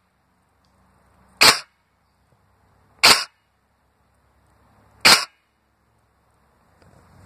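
Fully upgraded G&G GR25 airsoft electric rifle, an SR25 replica, firing three single semi-automatic shots about one and a half to two seconds apart, each short and sharp.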